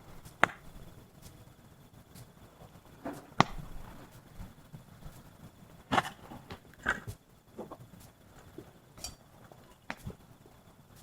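Wood fire crackling, with sharp pops and snaps coming at irregular intervals, one or two a second.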